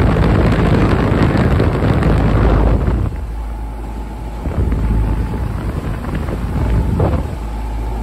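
Outdoor unit of a 1980 Carrier 10-ton split-system heat pump running in cooling mode: the condenser fan's rush of air, heavy on the microphone for about the first three seconds, then a steadier low hum with a faint steady tone.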